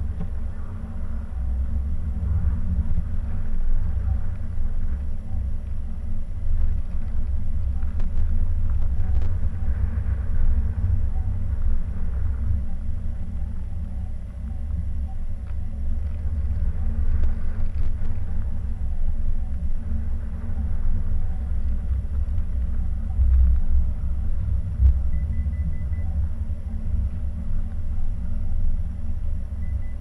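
A car driving on snow-covered roads: a steady low rumble of engine, tyres and road noise.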